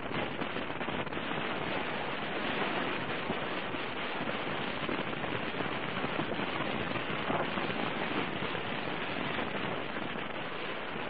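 Steady rush of wind and road noise with constant crackling on the microphone of a motorcycle riding in the rain.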